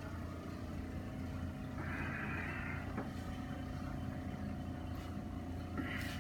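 Steady low mechanical hum in the room, with a brief soft hiss about two seconds in and a faint tick about a second later.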